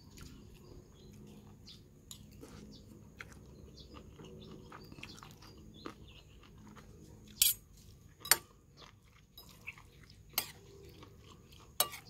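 Quiet chewing of a mouthful of instant noodles and beef, with about four sharp clinks of a spoon and fork against the bowl in the second half.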